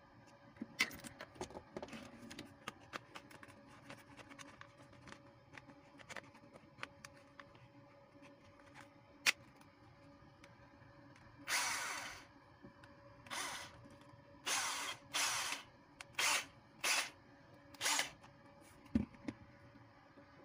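KingPower 12V cordless drill's motor and gearbox run in short trigger bursts, one of about a second and then about six brief ones, as a test of the drill on its rebuilt three-cell Samsung 18650 battery pack. Before that come plastic clicks and rattles as the pack and drill are handled, and near the end a dull thump as the drill is set down.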